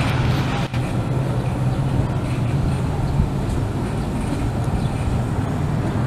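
Steady low rumble of motor traffic in a street.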